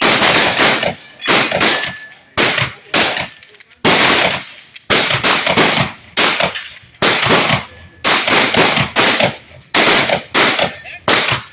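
Shotgun fired in a rapid string, about twenty shots at roughly two a second, each a sharp report with a short echoing tail.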